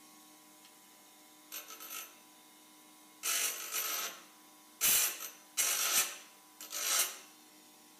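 Bench grinder running with a faint steady hum while a small part is pressed against the wheel in five short grinding touches: a light one about a second and a half in, then four louder ones, the longest nearly a second, between about three and seven seconds in.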